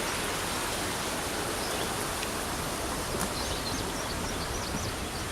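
Steady rush of running water from a small stream and waterfall. A bird chirps a quick series of short high notes about three seconds in.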